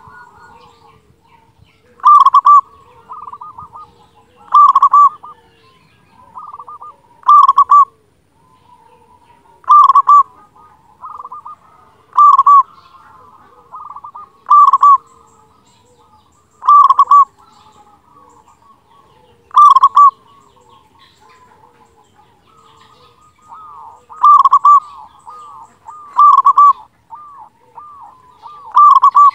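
Zebra dove (perkutut) cooing loudly. Its rapid, stuttering coo repeats about every two and a half seconds, with quieter coos in between.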